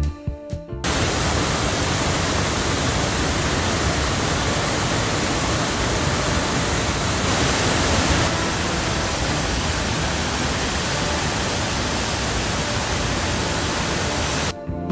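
Waterfall: a loud, steady rush of falling water. It starts about a second in and cuts off shortly before the end.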